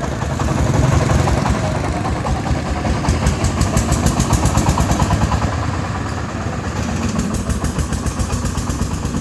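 Công nông farm truck's single-cylinder diesel engine chugging under load with an even, rapid pulsing.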